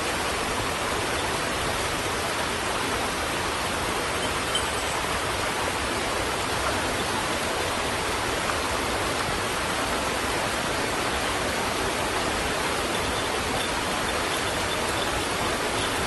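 Small mountain creek rushing over rocks in a steady, even wash of water noise.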